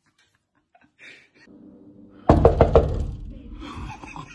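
A sudden quick run of about five loud knocks or bangs within half a second, about two seconds in, followed by a low rumble that fades over about a second.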